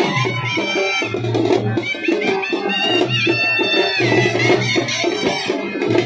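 Halgi frame drums beating a Teen Pavali dance rhythm, with a high melody line gliding over the drumming.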